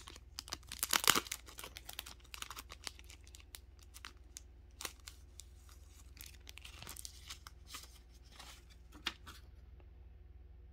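A mail package being torn open and rustled by hand: a loud tear about a second in, then scattered crinkles and small clicks that stop near the end.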